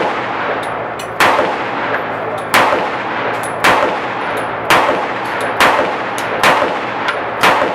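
Tokarev TT-33 pistol firing 7.62x25mm rounds in a steady string: seven sharp shots about a second apart, each leaving a short echoing tail.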